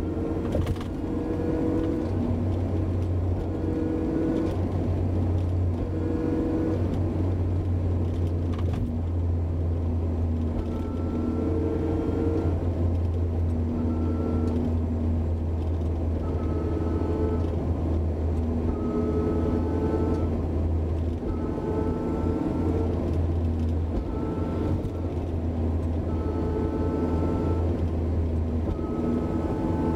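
Honda S2000 on the move, its rear differential gears whining: a pitched whine that comes and goes in stretches of about a second, some rising slightly, over the car's steady low drone. The whine is the differential's abnormal noise.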